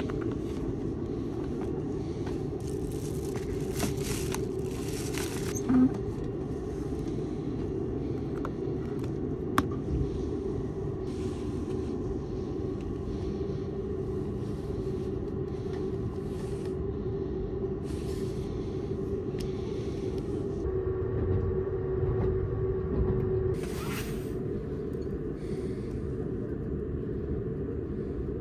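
Steady low hum of a Seibu 001-series Laview train car standing at the platform, with a few sharp clicks and rustles from the seat-back tray table and items being handled. A short hiss comes a few seconds before the end.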